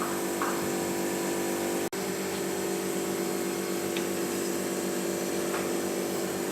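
A steady machine hum with a whine, like a small electric motor running evenly, over a hiss; it cuts out for an instant about two seconds in.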